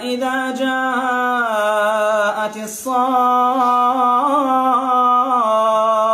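Male reciter chanting the Quran in melodic tajwīd style, drawing out long vowels in held, ornamented notes. There is a brief break with an intake of breath about three seconds in, then another long wavering note that steps down in pitch near the end.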